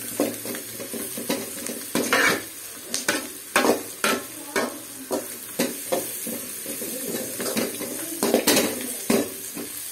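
Sliced onions and carrots sizzling as they sauté in a metal kadai, while a perforated metal skimmer spoon scrapes and knocks against the pan in repeated irregular strokes.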